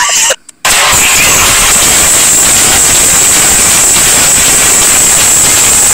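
A loud, steady rushing noise with a constant high hiss, starting after a brief cut to silence about half a second in: a sound effect laid under an animated intro logo.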